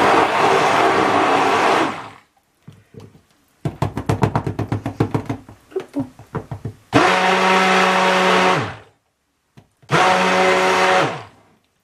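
Stick blender running in cold-process soap batter in three bursts, about two, two and one second long, blending in the colourant. After the later two bursts the motor's hum falls in pitch as it spins down. Between the first and second bursts comes a stretch of rapid clicking.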